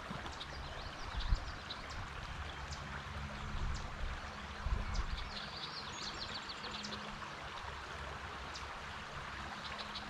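Small creek running steadily over a shallow riffle, an even wash of water.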